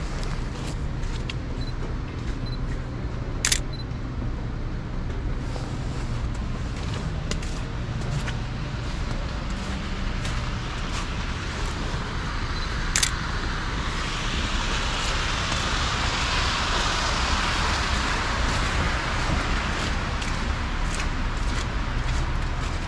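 Two sharp shutter clicks from a Sony A7C mirrorless camera, about 3.5 seconds apart from the start and again about ten seconds later, over steady city street traffic whose hiss swells in the second half as a vehicle goes by.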